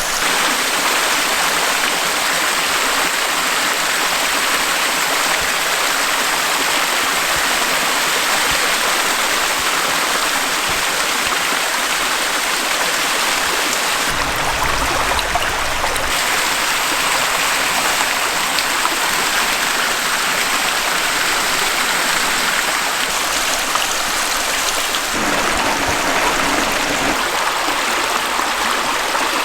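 Small woodland waterfall and brook rushing steadily. A brief low rumble sounds about halfway through.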